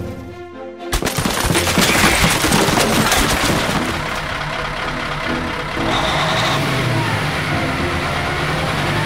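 A sudden crash about a second in, then a few seconds of dense rattling clatter as a load of garbage tumbles from a garbage truck onto a small car. Afterwards a steadier low truck engine sound runs on.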